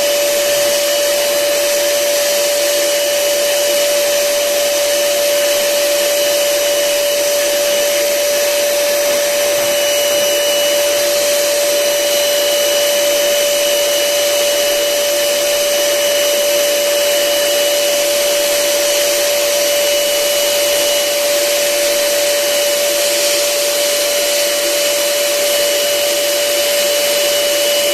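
Electric air blower running steadily with a constant whine as it inflates a giant balloon.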